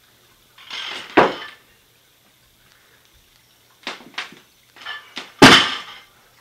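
An 85 lb barbell snatch: a short scuffing rush and a sharp thud about a second in as the bar is pulled and caught, then a run of knocks with the loudest thud near the end as the loaded bar comes back down.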